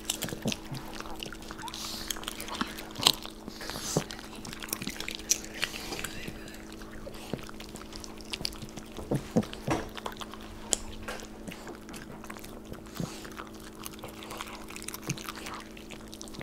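Dogs chewing popcorn: irregular crisp crunches and bites, a few of them sharper and louder, over a steady low electrical hum.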